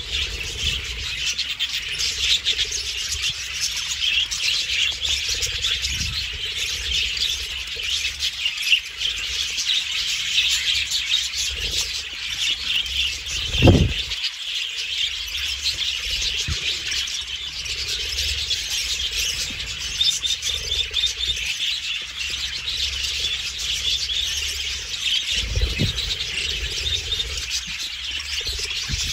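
A flock of budgerigars chirping and chattering continuously in a dense, overlapping din. There is a short low thump about halfway through and a fainter one near the end.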